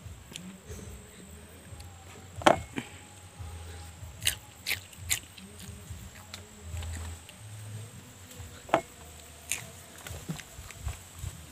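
Mouth sounds of a person biting and chewing raw green chillies dipped in salt: a handful of sharp crunching clicks, the loudest about two and a half seconds in.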